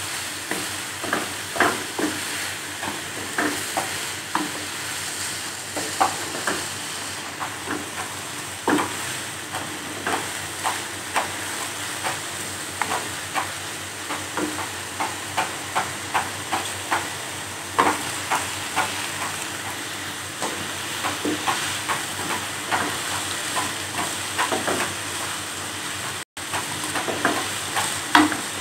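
Diced carrots, peas, green capsicum and onion sizzling in oil in a wok, stirred with a wooden spatula that knocks and scrapes against the pan about once or twice a second. The sound cuts out for a moment near the end.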